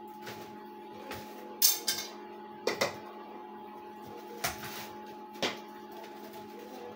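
Cotton candy machine running with a steady motor hum, broken by several short sharp knocks.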